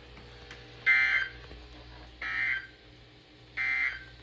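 Three short bursts of warbling two-tone data from a NOAA Weather Radio broadcast, about a second and a half apart. They are the SAME end-of-message code that closes a severe thunderstorm warning.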